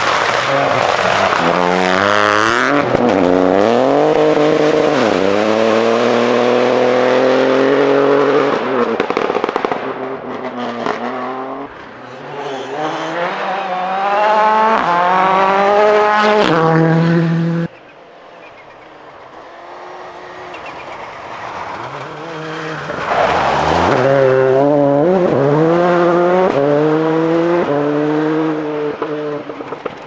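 Rally cars at full throttle on a gravel stage, engines revving hard and shifting up through the gears, the pitch climbing and dropping back at each change; the first is a Peugeot 208 Rally4. The sound cuts off suddenly partway through, and another car builds up and passes with the same rising revs and gear changes before fading near the end.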